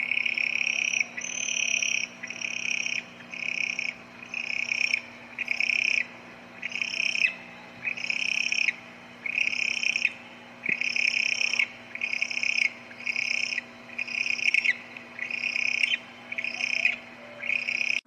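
An animal calling in a steady series of short, hoarse, hissing calls, about one a second, each lasting under a second.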